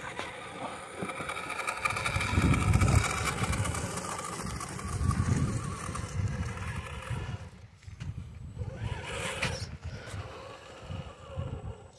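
Radio-controlled scale crawler truck driving while towing a boat trailer: a thin motor whine with its tyres rolling over grass and dirt, and irregular low rumbles that are loudest about two to three seconds in and again around five seconds.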